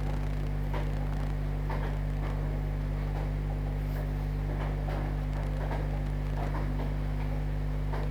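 A steady low electrical hum with faint, irregular light clicks and taps over it.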